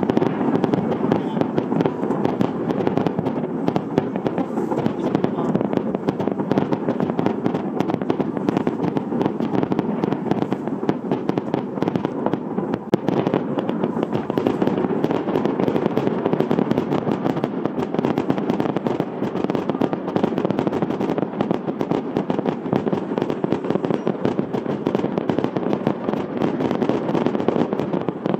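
Aerial fireworks shells bursting one after another in a dense, unbroken run of bangs and crackles.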